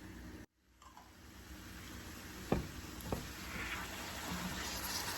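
Chicken curry sizzling in a frying pan as it is stirred, the sizzle building up after a brief gap near the start, with two sharp knocks of the utensil against the pan about two and a half and three seconds in.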